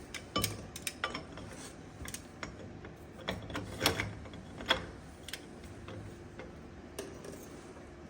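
Hand tools working on a bus wheel hub: irregular sharp metal clicks and clanks, with ratchet-like clicking. The loudest knock comes about four seconds in.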